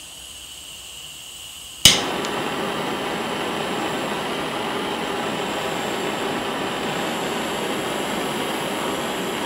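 Pepe Tools Tsunami butane hand torch being lit: one sharp ignition click about two seconds in, then the flame burns with a steady hiss.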